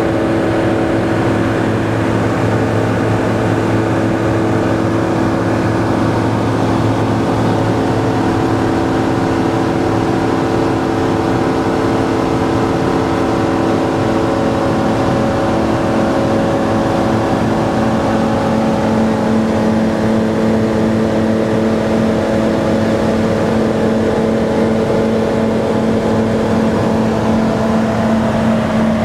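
Kitfox light aircraft's engine and propeller droning steadily in cruise, heard inside the cabin. The pitch shifts slightly about two-thirds of the way through.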